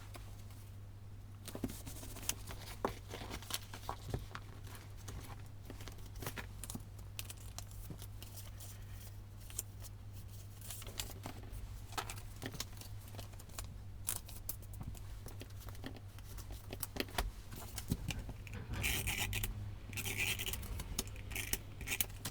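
Stationery and paper being handled on a desk, played at double speed: quick clicks, taps and scratchy rustles, with a denser stretch of scraping or rustling near the end, over a steady low electrical hum.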